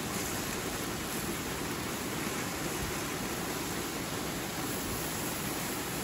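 Waterfall rushing steadily, an even, unbroken wash of water noise.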